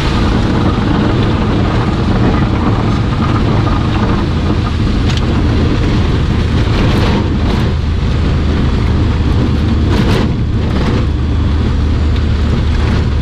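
Cockpit noise of a Cessna 152 on its landing roll: the Lycoming O-235 four-cylinder engine and propeller running with a steady loud drone, mixed with airflow and rumble. A few brief clicks come through in the second half.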